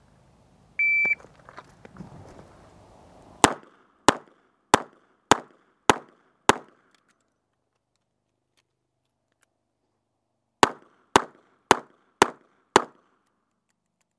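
Competition shot timer gives one short high beep. A revolver then fires six shots a little over half a second apart. After a gap of about four seconds, the time of a reload once the cylinder is empty, it fires five more at the same pace.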